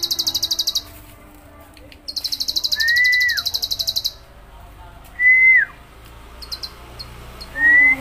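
Caged bar-winged prinia (ciblek) singing its 'ngebren' song: a very fast, high, buzzing trill in two bursts, the first cut off just under a second in and the second lasting about two seconds. Between and after the trills come three short clear whistled notes that rise and then drop sharply.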